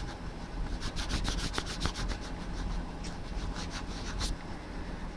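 Wiping and rubbing on a camera lens to clear a smudge: a quick run of short scraping strokes, then a few more after a pause.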